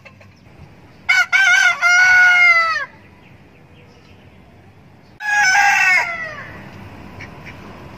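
Roosters crowing twice. The first crow runs nearly two seconds: a few short notes, then a long note that falls away at the end. A shorter crow comes about five seconds in.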